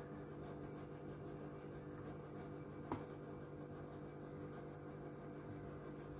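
A steady low hum with several faint level tones, and one light click about three seconds in: a metal fork knocking against a glass baking dish while chicken pieces are turned in flour.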